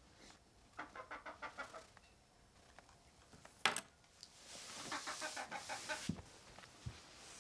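A chicken clucking in two quick runs of short calls, one about a second in and another a little past the middle, with a single sharp click between them.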